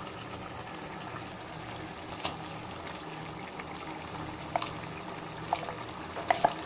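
Chicken simmering in its own juices in a steel pot, a steady bubbling hiss, with a few sharp taps as ground masala paste is spooned in.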